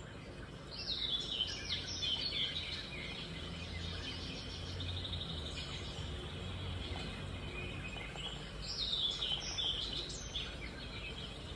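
A songbird singing in two bursts of quick, falling chirps about six seconds apart, over a steady low hum.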